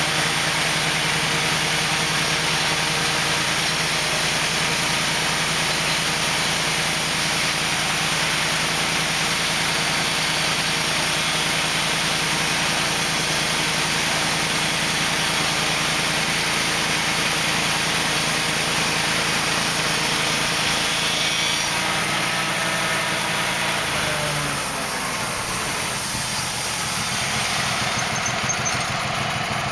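Wood-Mizer portable band sawmill running under load, its engine holding a steady note over the hiss of the band blade sawing a log. Near the end, the engine note slides down and the sound drops a little.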